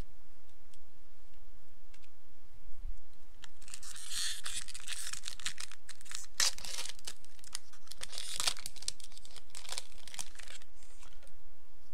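Magic: The Gathering booster pack's foil wrapper torn open by hand and crinkled: a run of crackling tears and rustles starting about three and a half seconds in and lasting until near the end.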